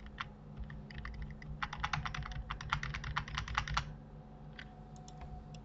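Computer keyboard keystrokes: a few scattered taps, then a quick run of typing for about two seconds in the middle, then a few more taps near the end.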